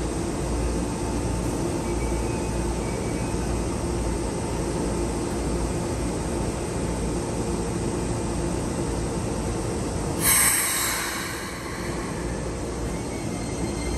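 Keikyu 1000-series electric train standing at the platform with a steady hum and low rumble from its onboard equipment. About ten seconds in comes a sudden sharp hiss of released air that fades over about a second. Near the end the low sound swells as the train starts to move.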